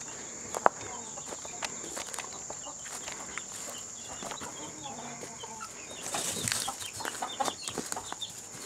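Small flock of chickens: chicks peeping and hens clucking, with a sharp click about half a second in and a louder flutter, like wings flapping, around six seconds in.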